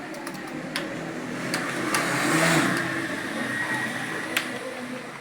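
A few scattered computer-keyboard keystroke clicks over a noise that swells to its loudest about halfway through and then fades away.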